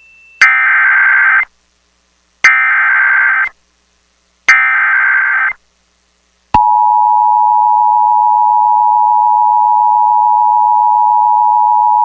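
Emergency Alert System transmission: three bursts of the SAME digital header, each about a second long and a second apart, as a screechy data tone. Then, about six and a half seconds in, the steady two-tone EAS attention signal (853 and 960 Hz together) starts and holds.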